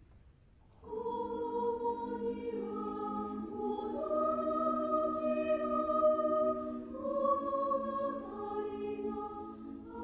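Women's choir singing, coming in about a second in with held chords that move from one to the next.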